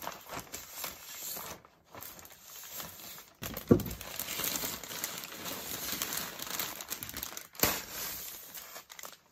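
Plastic vapour-barrier sheeting and paper-faced fiberglass insulation crinkling and rustling as they are pulled and handled, with a sharp knock a little over a third of the way through and another near the end.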